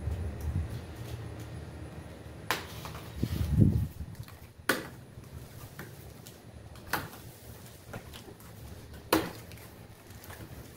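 A small cardboard box being handled and opened by hand: four sharp snaps of the card and flaps, about two seconds apart, with a louder dull thump about three and a half seconds in.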